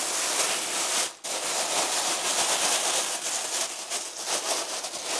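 Plastic roasting bag crinkling and rustling as hands press and knead it, the bag filled with cut vegetables in cream. There is a brief pause about a second in.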